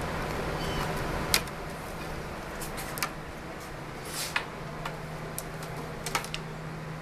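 A cat batting at a string toy: irregular sharp clicks and knocks as the toy's plastic and bead pieces hit the wooden window perch and sill, over a steady low hum.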